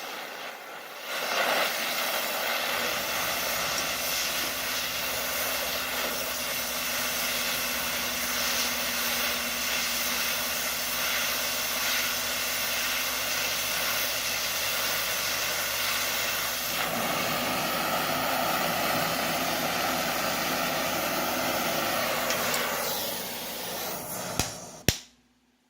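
Steady hiss of a torch flame heating steel, shifting slightly in tone partway through. It fades and stops near the end, with a couple of clicks.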